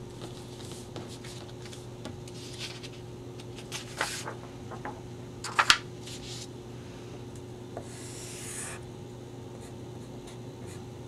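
Paper sheets being handled and slid on a tabletop, with scattered soft rustles and light taps, then a felt-tip marker drawing a curved line on paper, a smooth hiss of just under a second.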